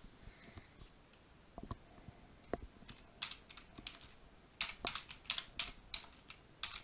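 Typing on a computer keyboard: a few scattered keystrokes, then quicker runs of key presses in the second half.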